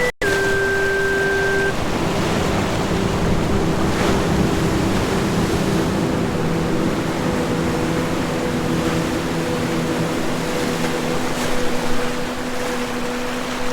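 Ocean surf washing in a steady hiss, with a few soft held tones of ambient music underneath. The sound cuts out for a split second right at the start.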